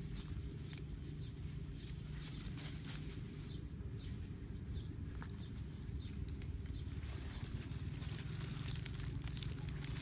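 Steady low rumble of outdoor background, with scattered light ticks and rustles as a thin stick is handled in the grass.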